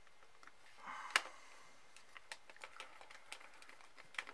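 Small scattered clicks and ticks of a screwdriver working on the plastic earcup of a Sennheiser HD598 headphone as a screw is driven back in and the headset is handled, with one sharper click about a second in.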